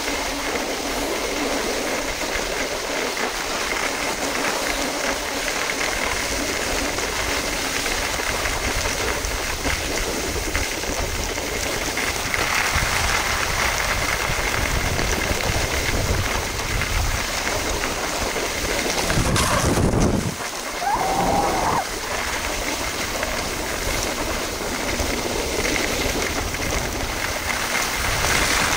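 Skis sliding and scraping over groomed, packed snow on a downhill run, a steady hiss that runs without a break except for a brief change about twenty seconds in.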